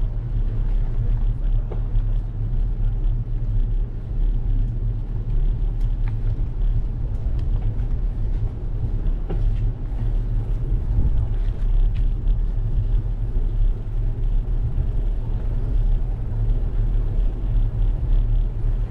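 Steady low rumble of riding a bicycle along an asphalt street: wind buffeting the microphone and tyre and road noise, with a few faint ticks.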